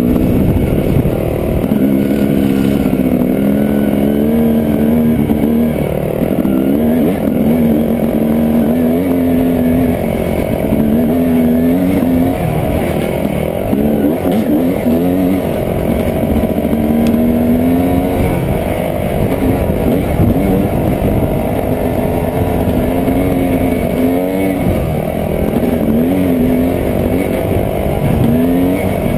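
Dirt bike engine heard from on the bike, its pitch rising and falling again and again as the throttle is opened and closed, over a rough steady rumble.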